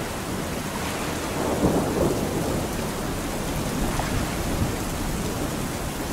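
Steady rain with thunder rumbling, swelling about a second and a half in and fading back.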